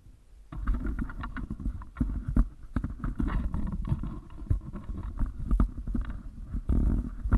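Handling noise from a camera being moved about by hand: irregular knocks and rubbing over a low rumble, starting about half a second in and louder near the end.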